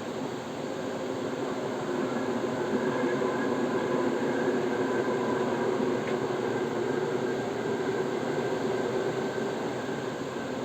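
A train running steadily, a continuous rumble with a few humming tones held over it.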